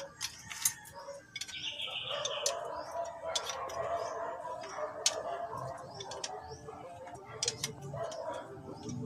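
Small metal hand wrench clicking and clinking irregularly against a bolt as the clutch slave cylinder is bolted back on, with birds calling in the background.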